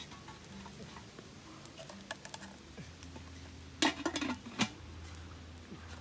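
Kitchen utensils clinking and knocking against cookware: a few light clicks, then a loud cluster of knocks about four seconds in. A low steady hum sets in about three seconds in.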